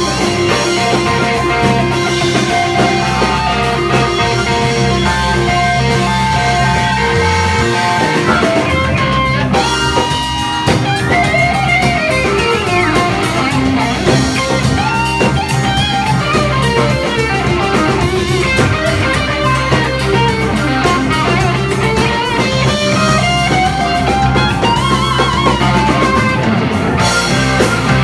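Live rock band: an electric guitar solos over a drum kit, with long sustained notes and pitch bends that rise and fall.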